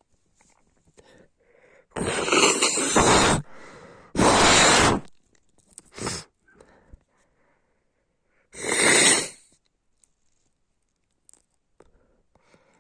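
A sick woman with a snotty cold sneezing and coughing, four loud fits in all: a long one about two seconds in, another soon after, a short one near six seconds and a last one near nine seconds, with faint sniffling breaths between.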